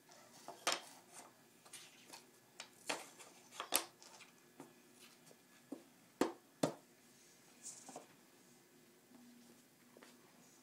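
Wooden alphabet puzzle pieces knocking and clacking against the wooden puzzle board as they are handled and fitted in: a string of irregular light clicks, with sharper knocks about a second in, near four seconds and twice a little after six seconds.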